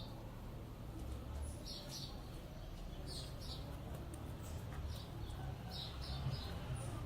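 Short high-pitched chirps, often in pairs, repeating every second or so over a low rumble.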